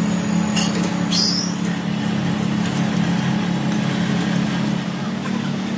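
A steady low machine drone of a running motor, with a couple of short sharp scrapes about a second in.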